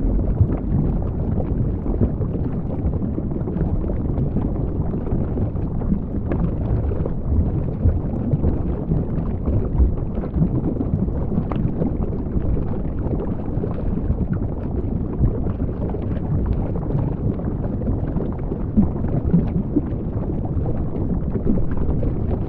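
Underwater ambient noise picked up by a camera submerged on a reef: a steady low rumble with faint scattered clicks.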